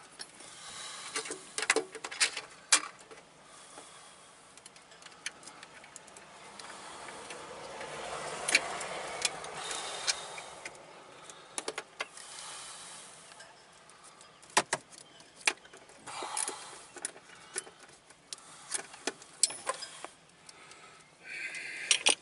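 Scattered metallic clicks and clinks of hand tools and a steel battery hold-down bracket being handled and fitted over a car battery. A soft rushing noise swells and fades about eight to eleven seconds in.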